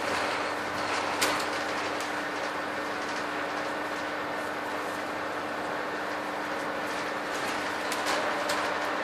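Inside a Scania N230UD double-decker bus under way: the diesel engine runs with a steady hum under road noise and body rattles. A sharp rattle or knock comes about a second in, and a few lighter clicks near the end.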